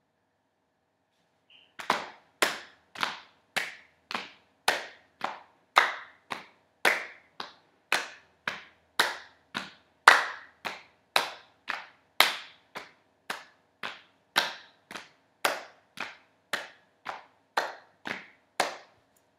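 Hands clapping in a steady slow beat, about two claps a second, starting about two seconds in, each clap with a short ringing tail.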